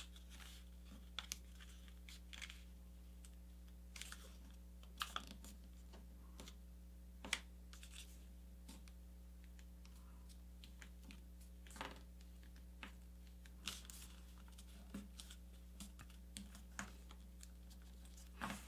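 Sheet of paper being folded and creased by hand: scattered short crinkles, taps and rubs as fingers press and smooth the layers flat. Under them is a faint steady low hum.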